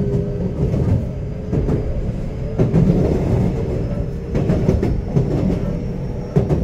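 Inside a moving electric train: the steady rumble of wheels on the rails with irregular clicks and knocks over rail joints, and a faint steady hum. A sharp knock comes near the end.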